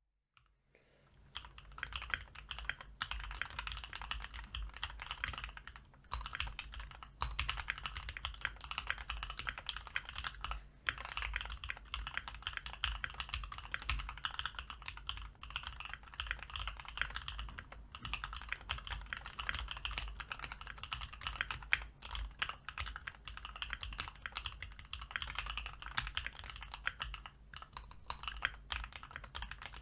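Continuous fast typing on a Keychron Q1 mechanical keyboard with lubed JWICK Black 63.5 g linear switches and ASA keycaps, the case damped with tape, PE foam and neoprene padding. Dense key strokes with a few brief pauses, starting about a second in.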